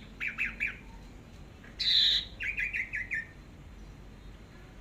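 Orange-headed thrush singing: about four quick chirping notes, then a loud harsh, hissing note about two seconds in, followed at once by a fast run of about six short notes.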